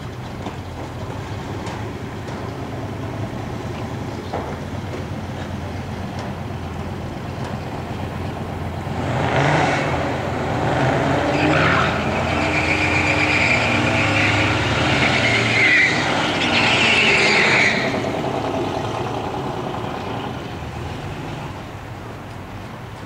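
Two Pontiac Firebird drag cars' engines running at the starting line. About nine seconds in comes a louder stretch of some nine seconds, with engine revving and a steady high tire squeal, which then dies back to idling.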